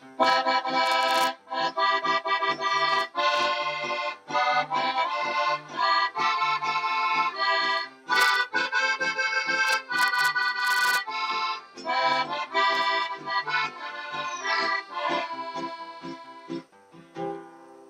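Two piano accordions playing a lively tune together in short rhythmic chords, with acoustic guitar accompaniment, finishing on a held chord that fades near the end.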